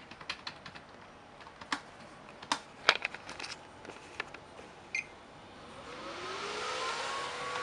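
A few sharp clicks and knocks, then about six seconds in the stock CPU fan of an i3-2120 Acer Aspire M1935 desktop spins up toward full speed: a rising whine over a growing rush of air that levels off near the end.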